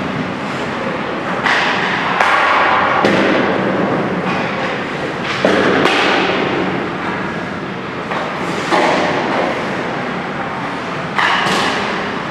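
Ice hockey shooting drill: about seven sharp hits at uneven intervals, sticks striking pucks and pucks hitting the boards, each echoing around the rink over a steady background noise.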